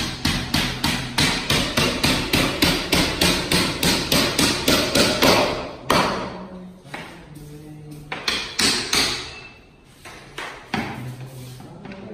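Hammer blows in a quick, even series, about three a second, then slower, scattered knocks over the second half.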